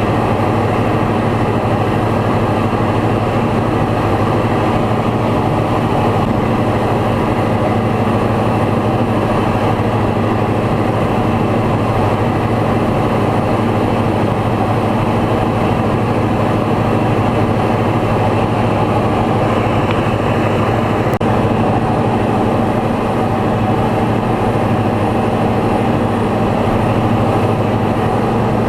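Light aircraft's piston engine and propeller droning steadily in cruise, heard from inside the cabin.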